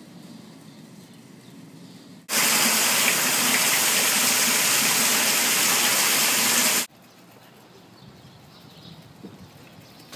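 Water gushing into a street storm drain grate: a loud, steady rush that starts and stops abruptly and lasts about four and a half seconds, with faint quiet background before and after.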